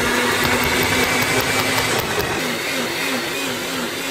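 Countertop blender running steadily, blending a jar of chopped food into a smoothie.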